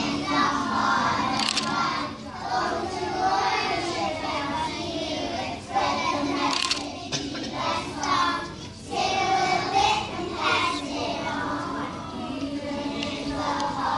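A class of preschool children singing a song together, in phrases with short breaks between them.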